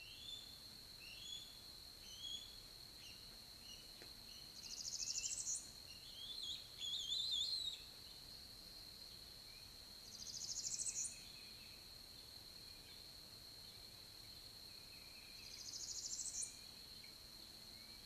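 Small songbirds singing in the treetops: scattered short chirps, a louder flurry of chirping about six seconds in, and a buzzy rising song repeated three times at intervals of five to six seconds. A steady high-pitched whine runs beneath them.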